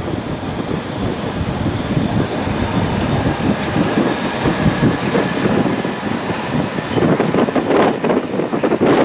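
London Underground District line trains, D78 stock and then S7 stock, running past on the rails with a steady rumble of wheels and motors. A rapid clatter of wheel clacks comes in about seven seconds in.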